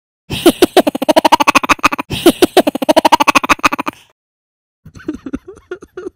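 Cartoon squirrel's voice chattering: two loud bursts of quick pulses, each about two seconds long, then a quieter, broken stretch of chatter near the end.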